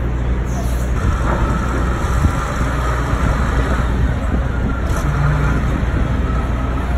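Steady low diesel drone of a large container forklift working on a ferry's steel vehicle ramp. A faint whine comes in about a second in and rises slowly, and there is one short clank near five seconds.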